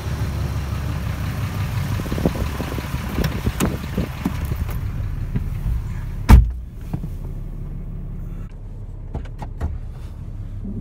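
Wind buffeting the microphone over a Ram 2500 pickup's idling engine, with a few knocks as the cab is entered. About six seconds in the truck door slams shut, the loudest sound, and the engine's idle then carries on muffled inside the cab with a few faint clicks.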